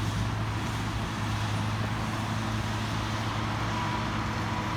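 An engine running steadily, a low even hum with a faint haze of noise over it.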